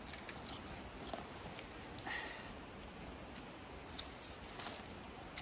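Faint handling of plastic maple-sap tubing: a few light ticks and a soft rustle over a quiet outdoor hush.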